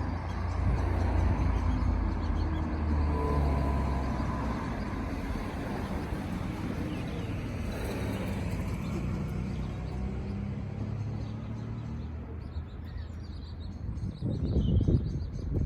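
Steady low engine rumble, with a few louder low bumps near the end.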